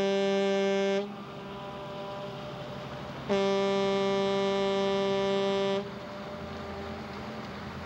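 Motorboat's whistle blowing: a steady single-pitched blast that cuts off about a second in, then a second long blast of about two and a half seconds starting about three seconds in.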